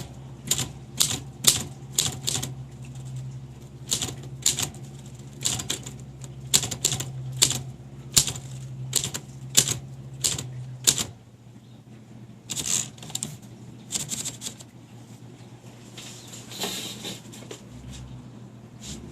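1933 Smith Corona flat-top manual typewriter being typed on: sharp key strikes at an unhurried, uneven pace of one or two a second. After a pause there are a few more strikes, and near the end comes a longer rattling sound.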